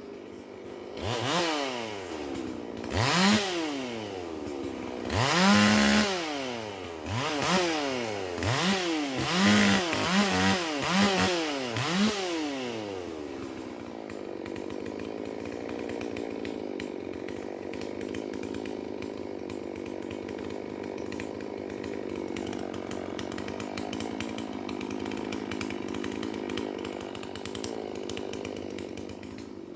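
Holzfforma G444 two-stroke chainsaw (a Stihl MS440 clone) being revved, with about nine quick throttle blips that rise and fall in pitch over the first twelve seconds. It then drops back to a steady idle.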